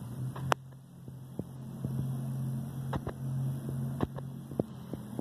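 A steady low hum, with scattered sharp clicks and taps from the phone being handled.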